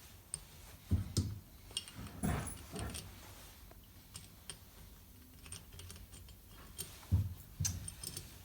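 Small metal parts of a Nuffield 4/65 tractor's hydraulic spool valve clicking and clinking as they are handled and fitted back together by hand, with a few duller knocks about a second in, at two seconds and near the end.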